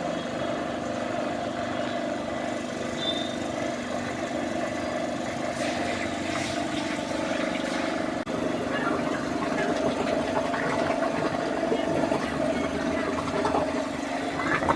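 An engine running steadily at an even speed, with a brief break about eight seconds in.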